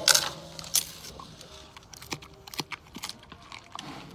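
Giant panda biting and chewing bamboo: sharp crunching and splintering cracks, loudest in the first second, then scattered smaller crunches.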